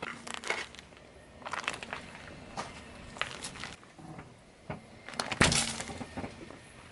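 Car tyre rolling slowly over grit on asphalt, a scattered series of crunches and crackles. The loudest crunch comes about five seconds in, as the tyre flattens a foil ketchup sachet and bursts it.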